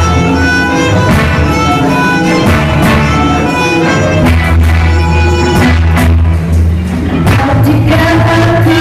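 Live acoustic band playing an instrumental passage: a violin carries the melody over strummed acoustic guitar and keyboard with a steady low bass.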